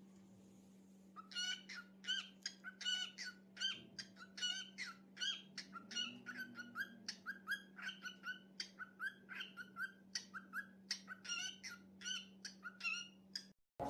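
Cockatiel chirping in a rapid, steady run of short calls, about three to four a second, starting about a second in.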